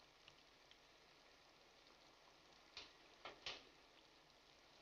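Near silence, with a few faint short taps and a brief pour about three seconds in as liquor is poured from a small bottle into paper cups.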